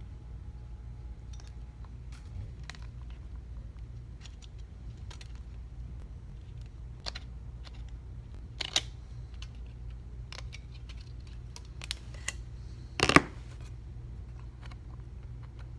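Small clicks and taps of tools and parts being handled while an iPhone 6s is worked on. The louder taps come about 9 and 12 seconds in, and a louder knock about 13 seconds in, over a steady low hum.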